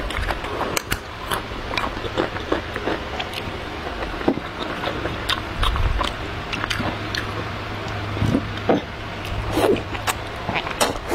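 Close-miked chewing and wet mouth clicks of a person eating noodles, with loud slurps of the noodles being sucked in near the end. A steady low hum runs underneath.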